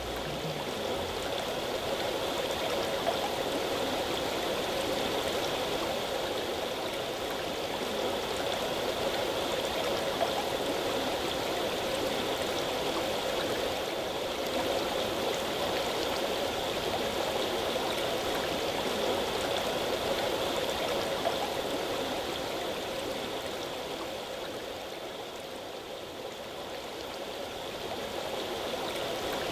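River water flowing steadily, a constant rush with no other events; it eases slightly a little before the end.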